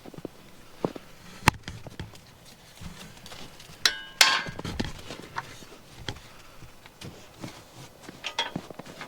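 Pigs eating grain, with scattered sharp knocks and clatter. The loudest two knocks, with a brief ring, come a little before halfway.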